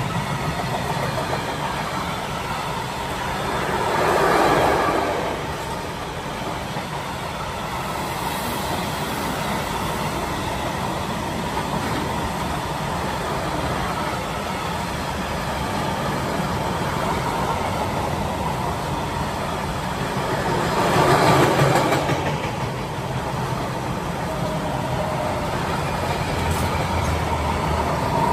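Train hauled by a ČD class 182 electric locomotive rolling past, a steady rumble and rattle of wheels on the rails. It swells louder twice, about four seconds in and again about twenty-one seconds in.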